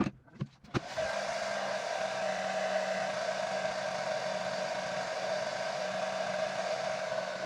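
A handheld hair dryer switched on about a second in after a few clicks, then blowing steadily at one setting.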